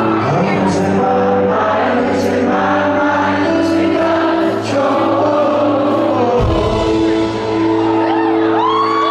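Live rock band playing, with sung vocals over sustained chords and periodic cymbal hits; about six seconds in, a deep bass comes in under the music.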